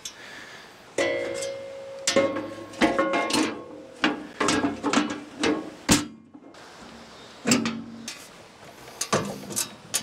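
Metal blade guards of a Wood-Mizer LT40 Wide sawmill being swung shut and latched by hand: a run of clanks and knocks, several leaving a brief metallic ring, the sharpest one about six seconds in.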